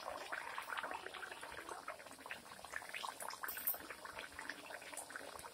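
Kachoris deep-frying in hot oil in a steel kadhai: a steady sizzle made of dense small crackles and pops, with one sharper pop a little past the middle.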